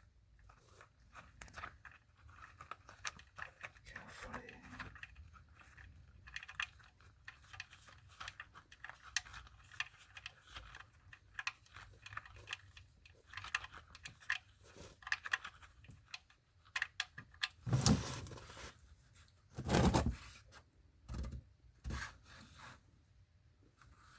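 Handling noises under a car at the oil drain plug: irregular small clicks, scrapes and rustles of gloved hands and tools, with two louder, noisier bursts about three-quarters of the way through.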